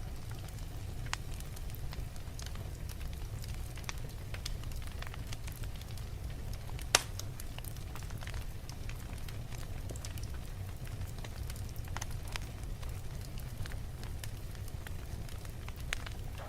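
Wood fire burning in a fireplace: a steady low rumble of flames with irregular crackles and pops, and one sharp loud snap about seven seconds in.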